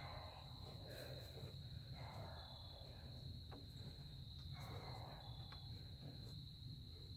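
Faint outdoor ambience: a steady high-pitched trill with a low rumble underneath.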